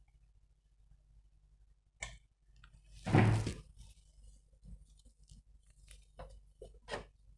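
Close handling noise while fitting front-panel connectors onto a motherboard's header pins: a sharp click, then a louder brief knock or rustle about a second later, and a few faint clicks near the end.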